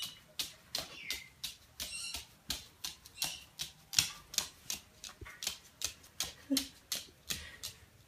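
Paper towel crinkling and rustling in short sharp bursts, about two or three a second, as a black-headed caique tugs and drags it across a hardwood floor.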